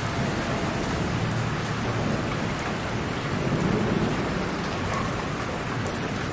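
Heavy rain falling steadily as a dense, even hiss. A low swell rises about three seconds in and fades again a second later.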